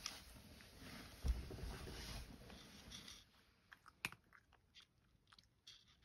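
Cat crunching and chewing dry kibble, steady for about three seconds, then quieter with scattered small crunches and one sharp click about four seconds in.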